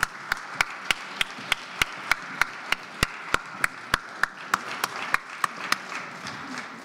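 Audience applause, with one set of sharp, evenly paced claps close to the microphone, about three a second, stopping near the end while the wider applause fades.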